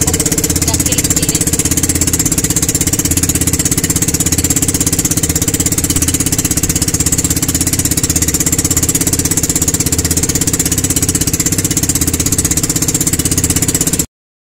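Engine of a motorized outrigger boat (bangka) running steadily under way, a rapid, even chugging, with a constant hiss of rushing water and spray over it. It cuts off abruptly near the end.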